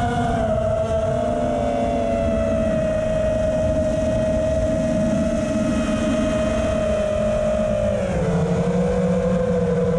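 FPV racing quadcopter's brushless motors and propellers running in flight, a steady whine with wind noise that drops in pitch about eight seconds in as the motors slow.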